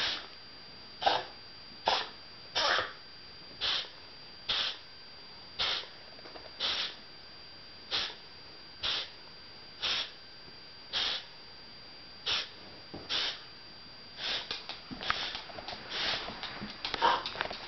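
Repeated short coughs, about one a second, turning quicker and more ragged in the last few seconds.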